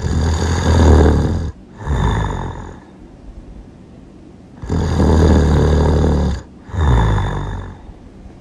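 Loud, rattling snoring. It comes twice: each time a long, buzzing breath, a brief break, then a shorter second breath.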